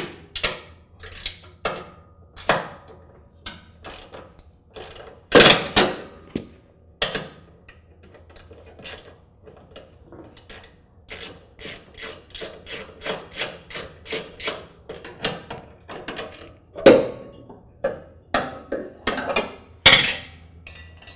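Socket wrench ratcheting on the bolts of a riding mower's deck belt guard, in runs of quick, evenly spaced clicks at about three a second, with a few louder metal knocks as the tool and guard are handled.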